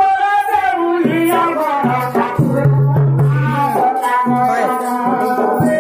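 Live Odia danda nata folk music: a singer holding wavering, drawn-out notes over a double-headed barrel drum and jingling, rattling percussion.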